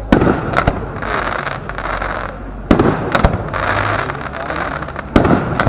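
Large aerial firework shells bursting, three sharp bangs about two and a half seconds apart, each followed by a spell of crackling as the stars break up.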